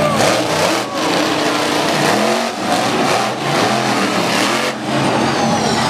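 Monster truck engine revving hard, its pitch rising and falling again and again as the truck accelerates and lets off across the dirt.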